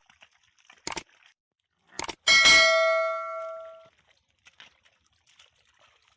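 Subscribe-button sound effect: two short clicks, then a bright bell ding that rings out and fades over about a second and a half.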